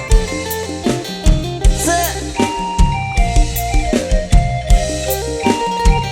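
Instrumental passage of a live mor lam band: a drum kit keeps a steady dance beat with snare and kick strikes under sustained heavy bass and a melody line.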